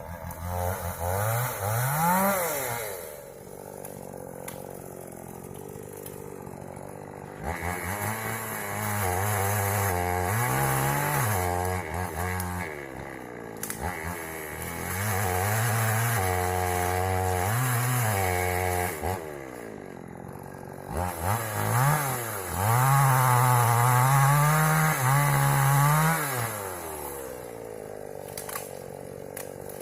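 Two-stroke chainsaw revving, then cutting sengon wood in three long passes, its engine pitch sagging and recovering under load, dropping back to idle between cuts and near the end.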